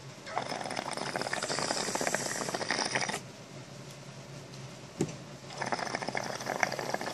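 Water bubbling in a small glass inline water pipe as air is drawn through it, in two runs of a few seconds with a short pause between them. A single sharp click falls in the pause, just before the second run.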